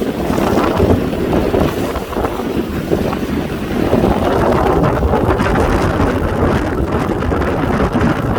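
Strong gale wind buffeting the microphone: a loud, rumbling noise that rises and falls with the gusts.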